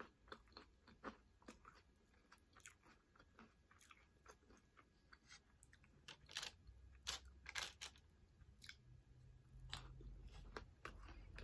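Close-miked chewing of crunchy nacho chips topped with ground beef and cheese: faint, irregular crunches and mouth sounds, with a few louder crunches past the middle.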